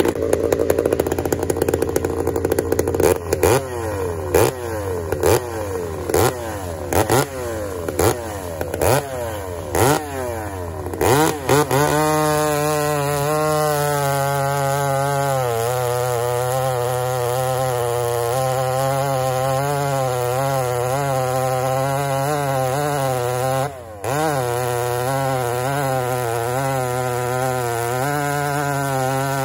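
Pioneer P38 chainsaw with a hand-filed full-house chain. It runs steadily, then its throttle is blipped about once a second for several seconds. From about twelve seconds in it holds high revs while cutting through a large log, the engine pitch wavering under load and dropping out briefly about twenty-four seconds in.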